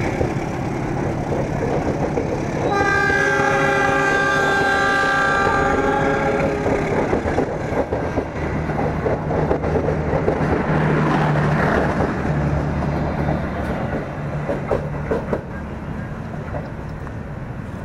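Passenger train carriages rolling past close by, with steady wheel-and-rail rumble and clatter. About three seconds in, a train horn sounds several tones at once and holds for about four seconds.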